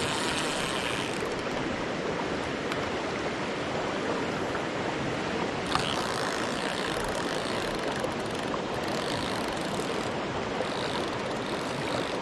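Mountain stream water rushing steadily over rocks, with one sharp click a little before six seconds in.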